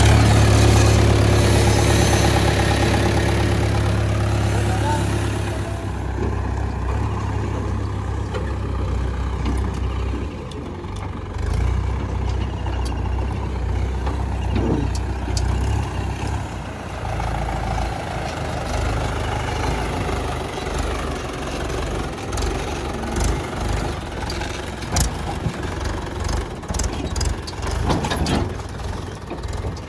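Diesel engine of heavy earth-moving machinery running steadily, with its level shifting now and then as it works. Scattered knocks and clanks come in, more often in the last several seconds.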